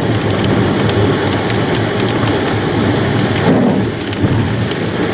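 Heavy rain hitting a storm-chase vehicle, an even hiss with scattered sharp ticks of drops over a steady low hum.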